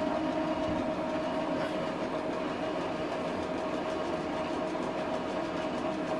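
Epson XP-4205 inkjet printer running its initial ink-charging cycle after new cartridges are fitted: a steady mechanical whir with a held tone.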